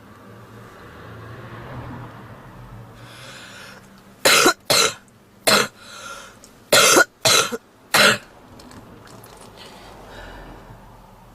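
A woman smoker coughing: six loud, short coughs in two clusters of three, between about four and eight seconds in, after a few seconds of soft breathing. It is a heavy smoker's cough, of the kind presented as typical of smoker's bronchitis.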